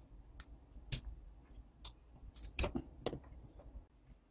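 Scattered light clicks and taps from handling a circuit board, a soldering iron and small parts during desoldering, with two louder knocks about two and a half and three seconds in.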